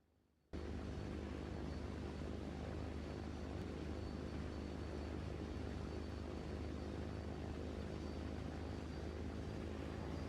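A steady, low mechanical drone with a rushing noise over it, cutting in sharply about half a second in after a moment of near silence.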